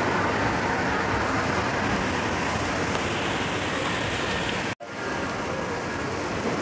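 Steady shopping-mall background noise, an even rumble and hiss with no clear single source. It drops out abruptly for an instant a little under five seconds in, then carries on slightly quieter.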